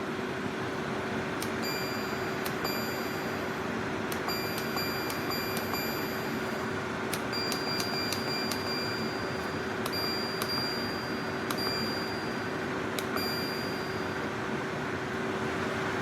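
Steady machine hum with a low, even tone, with light, ringing metallic pings every so often.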